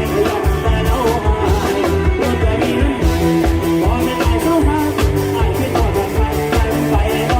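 Thai rot hae sound-truck band playing loud live dance music: a dense, driving drum and bass beat under a melody line.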